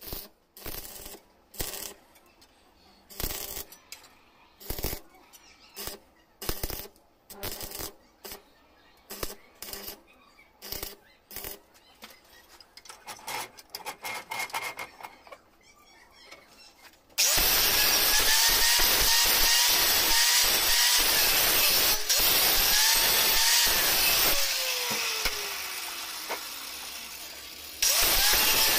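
Stick (arc) welder crackling in short irregular bursts, one or two a second, as steel rods are tack-welded. About seventeen seconds in, an angle grinder starts cutting steel strap, its motor pitch dipping and recovering under load. It then winds down with a falling whine and starts cutting again near the end.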